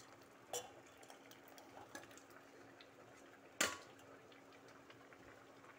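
Steel ladle and pan clinking against a steel vessel as thick cucumber kootu is emptied out: a few faint clinks, the loudest about three and a half seconds in.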